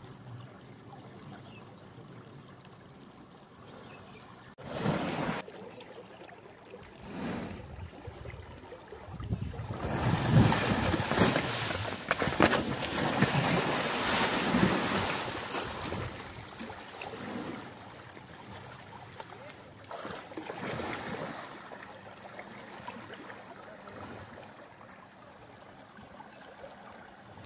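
Canal water splashing as a gaur moves and thrashes in it: two short splashes early, then a long, loud stretch of heavy splashing, and one more short splash later, over the steady rush of flowing water.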